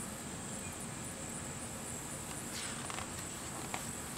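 Quiet outdoor background: a steady low hiss, with a couple of faint ticks in the second half.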